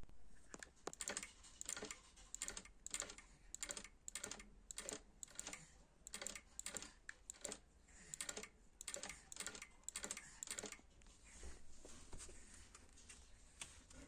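A small machine knocking: sharp clicking knocks, a few a second in uneven bunches, the knock the owner is complaining of. About eleven seconds in the knocking stops, leaving a soft steady hiss.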